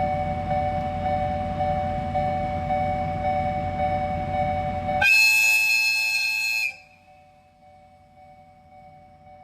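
Japanese railway level-crossing alarm ringing in a steady, regular two-tone clang over a low rumble. About five seconds in, a train horn sounds once for about a second and a half; the rumble stops with it, and the crossing alarm keeps ringing, fainter.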